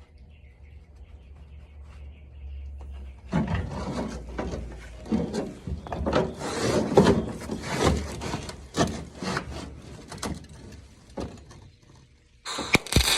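Irregular scraping and rubbing strokes of uneven loudness start a few seconds in and continue for about eight seconds. Near the end a louder, denser sound starts abruptly.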